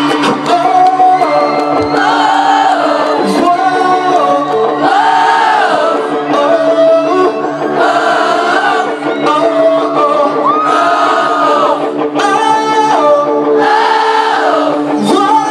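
Live pop-rock band performance heard from within the crowd: a sung melody in phrases that rise and fall over a steady held chord, with many voices singing along together.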